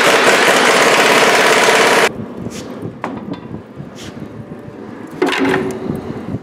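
Pneumatic air tool running in one loud burst of about two seconds, a hiss with a steady whine, cutting off suddenly. Then fainter knocks and scraping as a wooden board is pushed into a wood stove.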